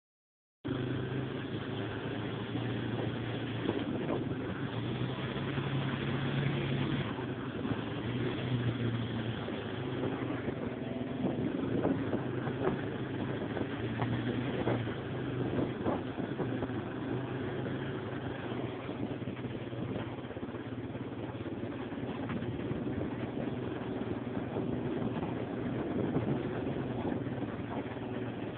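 Yamaha Warrior ATV's single-cylinder four-stroke engine running steadily under way on a dirt trail, its drone rising and falling a little with the throttle. There are a few short knocks along the way.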